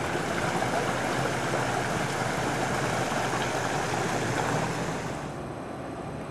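Steady rushing noise without any clear pitch or rhythm, which drops away about five seconds in.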